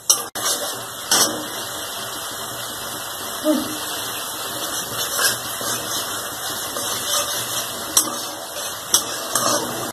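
Tomato, ginger-garlic and onion masala paste sizzling steadily in hot oil in a kadhai, with a steel spatula scraping and knocking against the pan now and then as it is stirred.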